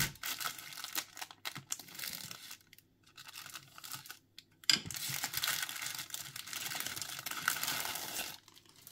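Clear plastic bag crinkling as a plastic model kit sprue is handled and pulled out of it. A sudden sharp crackle about halfway through, the loudest moment, is followed by a few seconds of steady crinkling that stops near the end.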